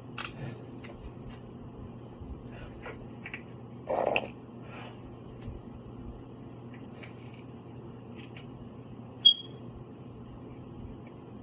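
Seafood boil mukbang eating sounds: scattered clicks and cracks of shells being broken and picked at, with a brief fuller sound about four seconds in. About nine seconds in comes a short, sharp ringing tap, the loudest sound.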